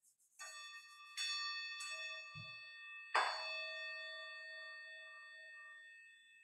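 A bell struck four times, roughly a second apart, the last strike the loudest, its ringing tones slowly dying away.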